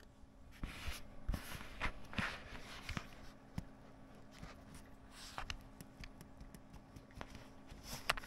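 Thin plastic membrane sheets of a dismantled laptop keyboard being handled: irregular rustling, crinkling and small clicks, busiest in the first few seconds and again near the end.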